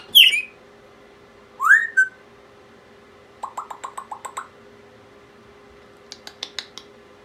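Pet parrot whistling and calling: a short falling whistle at the start and a rising whistle about two seconds in, then a quick run of short chirps around the middle and a few sharp clicks near the end.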